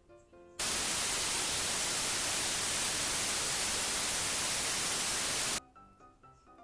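A loud, even hiss of static-like noise cuts in about half a second in and stops suddenly about five seconds later. Soft piano-like background music plays before and after it.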